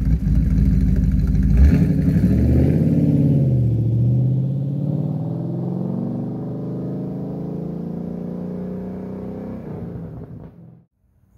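2012 Ford Mustang Boss 302's 5.0-litre V8 at wide-open throttle, heard through side-exhaust pipes with their resonators cut out, as the car passes by. It is loudest about two seconds in, its pitch drops as it passes, and it fades steadily as the car pulls away. The sound cuts off abruptly near the end.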